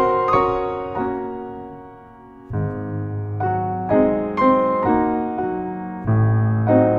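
Background piano music: a slow melody of struck notes that fades to a quiet pause about two seconds in, then starts a new phrase over a low bass note.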